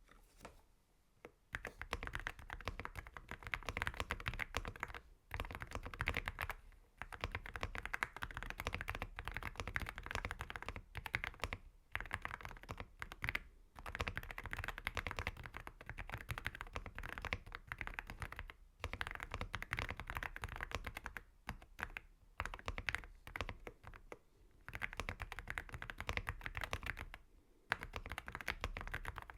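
Continuous typing on an AULA F75 mechanical keyboard with AKKO Rosewood switches: fairly quiet keystrokes with a little thock, in fast runs broken by short pauses.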